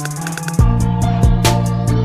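Background music with a steady drum beat; a heavy bass line and kick drum come in about half a second in.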